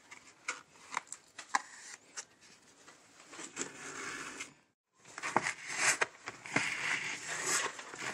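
A mesh drywall patch being rubbed and scraped flat against the wall by hand and tool: a quiet run of scratching with a few sharp clicks, then denser, louder scraping after the sound cuts out for a moment about five seconds in.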